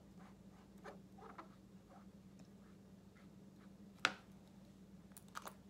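Oil-based Sharpie paint marker rubbing faintly across glossy paper as a swatch is coloured in, then a sharp click about four seconds in and a few lighter clacks near the end as the marker is capped and set down.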